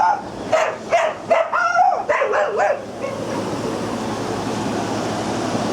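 Small dogs barking and yipping several times in quick succession, some calls wavering in pitch, for about the first three seconds; after that only the steady whir of air conditioning.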